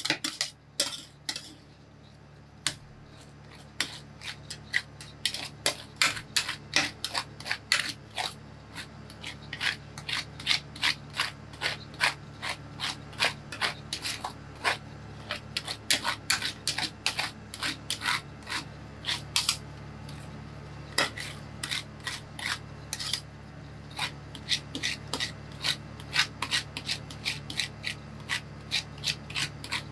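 Metal spatulas scraping and smoothing ice cream base across the frozen steel plate of a rolled ice cream machine, in quick repeated strokes that get going about three seconds in, over a steady low hum.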